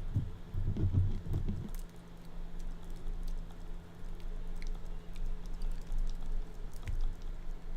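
Light scattered clicks and ticks of a short hook pick working the pins of an old Yale padlock under tension, with duller handling knocks in the first couple of seconds.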